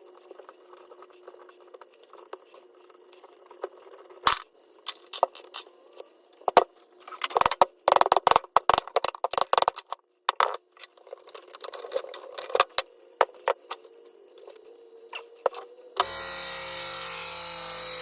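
Metal parts and hand tools clinking, rattling and knocking irregularly as an old electric motor and a refrigerator compressor are taken apart, with a dense run of knocks in the middle. Near the end a loud steady whirring with a slightly falling whine starts abruptly.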